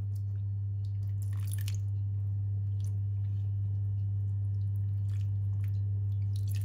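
A spoon stirring and lifting soaked sorrel (hibiscus) in a steel pot, giving a few faint wet squelches and drips, over a steady low hum.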